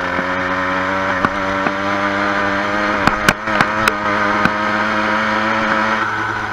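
Engine of a petrol motorised bicycle running steadily while riding along. A few sharp clicks or knocks come about three to four and a half seconds in, and the engine note changes near the end.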